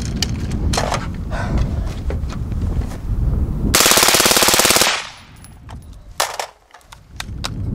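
Suppressed LaRue SUURG 5.56 mm rifle firing one full-auto burst of about a second, a rapid, even string of shots, starting about three and a half seconds in. A few scattered clicks come before it.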